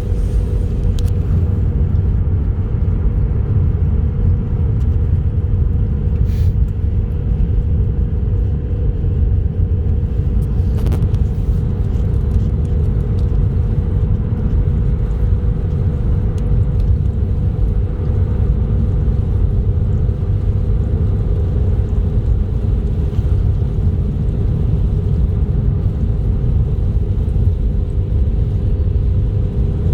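Car driving at steady speed: a continuous low road rumble from engine and tyres with a steady droning hum over it, and a few faint ticks.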